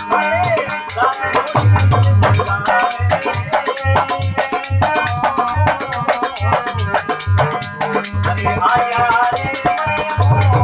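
Bhajan music: a steady drum beat with a dense jingling, shaker-like percussion on top and a wavering melody above.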